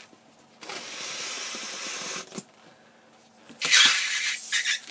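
Air rushing in two bursts as 260Q twisting balloons are inflated. The first burst is softer and lasts under two seconds; the second, about three and a half seconds in, is louder and hissier.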